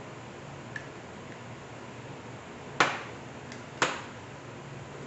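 Crockery and a spoon knocking at the dinner table: two sharp clinks about a second apart, with a few faint ticks before them, as a coffee mug is stirred and rice bowls and plates are handled.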